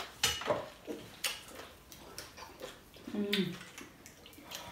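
Close-up eating sounds of people eating with their hands at a table: scattered soft clicks and taps of mouth sounds and food handled on plates, with a short hummed 'mm' about three seconds in.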